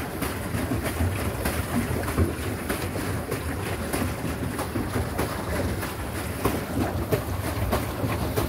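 Wind rumbling on the microphone over water splashing and lapping around a pedal boat as it is pedalled, with irregular small splashes and knocks.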